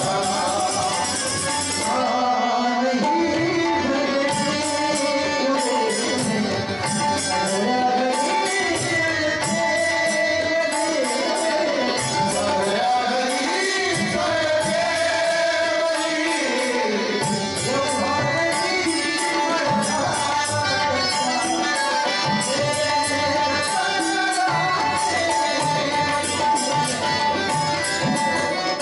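Marathi devotional bhajan: a male lead voice sings a melodic line, accompanied by harmonium, small hand cymbals (tal) keeping a steady beat, and a small hand drum.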